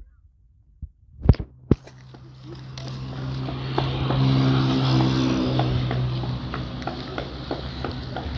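A vehicle engine passing by: its steady hum grows louder over a couple of seconds, peaks near the middle, then slowly fades, after a moment of near silence broken by two sharp clicks.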